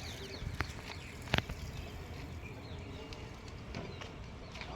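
Birds chirping over a steady low background noise, with two sharp knocks about half a second and a second and a half in, the second louder.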